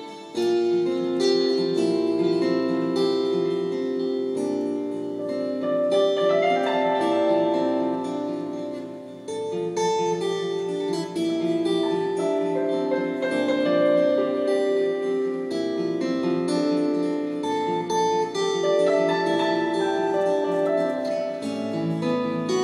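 Acoustic guitar and keyboard playing an instrumental piece live: picked guitar notes over held chords.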